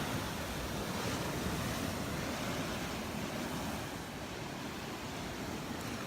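Surf washing steadily onto a sandy beach, with wind rumbling on the microphone.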